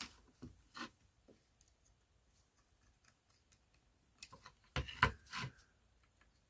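Small parts being handled and fitted back together by hand: scattered light clicks and taps, then a cluster of louder knocks and clatter about four to five and a half seconds in.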